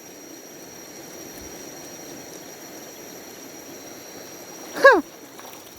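Steady outdoor hiss with a faint steady high-pitched tone above it; a little before the end, a short loud cry that falls in pitch.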